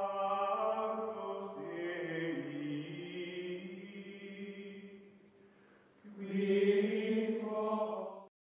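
Outro music: a choir-like chant of long held chords that fades about five seconds in, swells again about a second later, and cuts off suddenly near the end.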